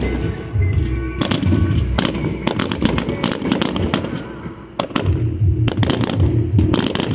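Fireworks going off in a rapid run of sharp bangs and crackles, with a brief lull about four and a half seconds in, over music with a strong bass beat.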